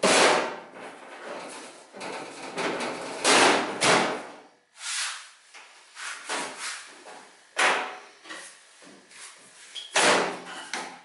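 Sheet-steel replacement wheel arch panel being handled and pushed into place against a VW Bay Window camper's body, giving a series of irregular sharp clanks and knocks with rattling and scraping between them.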